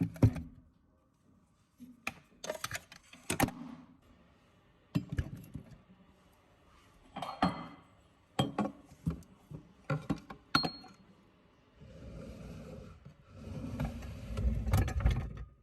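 Scattered light clicks and clatter of small hard objects being handled, then, from near the end, a few seconds of steady rustling and rubbing.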